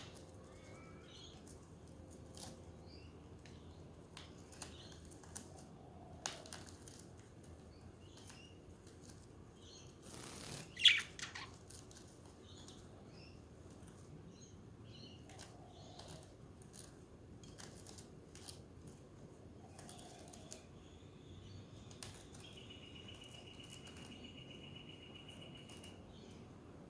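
Pet budgerigars in a cage: scattered faint clicks and rustles, a burst of wing flapping with one loud sharp chirp about a third of the way in, and a buzzy trilled note held for about three seconds near the end.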